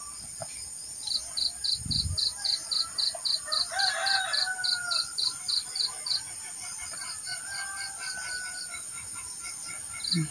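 A rooster crows about four seconds in and again around eight seconds, over insects chirping in quick pulses, about three to four a second, and a steady high insect hiss. A soft low thump about two seconds in.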